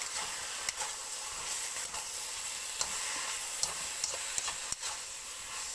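Sliced mushrooms sizzling in oil in a wok while being stirred with a spatula, which scrapes and knocks against the pan now and then.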